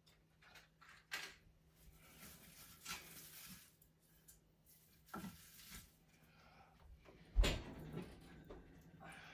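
Scattered knocks, clicks and short scrapes of someone working at a wood-burning fireplace, handling wood and metal fittings, with one heavy thump about seven seconds in.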